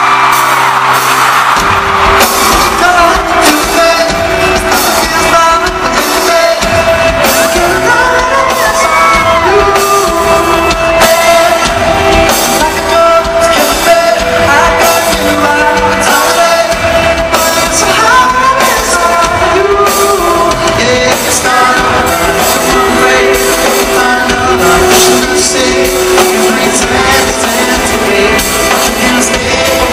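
Pop-rock band playing live, with a male lead singer singing over electric guitar and a steady drum beat. The full band with drums comes in about a second and a half in. Heard from the audience in an arena.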